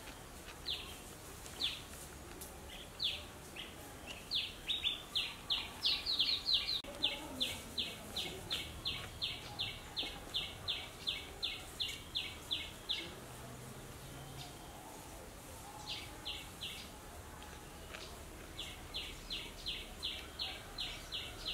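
A bird calling: short, high notes that slide downward, a few spaced singly at first, then long, even runs of about three notes a second, broken by a pause.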